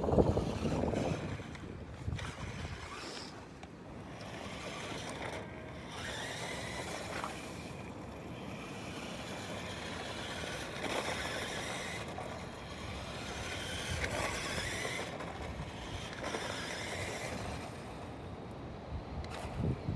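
Radio-controlled toy truck driving, its motor whining and changing pitch as it speeds up and slows.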